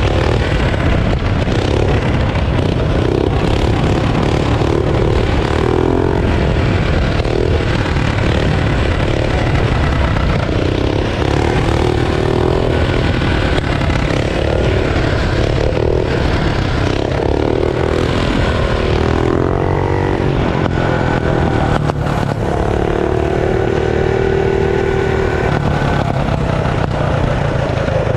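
Tillotson 212 stage-two single-cylinder mini bike engine running loud under way through an aftermarket header pipe. Its pitch rises and falls with the throttle and holds steady for a few seconds near the end. Wind rumbles on the microphone.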